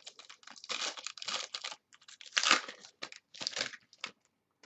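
Trading-card packaging being handled and opened: irregular crinkling and tearing of wrappers, with louder rips about a second in and again near the middle.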